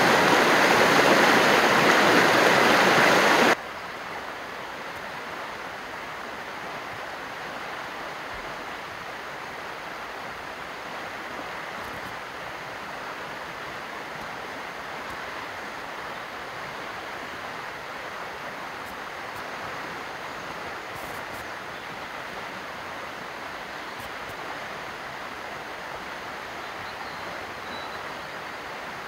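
River water rushing in spring flood. It is loud and close for the first three and a half seconds, then drops suddenly to a quieter steady rush.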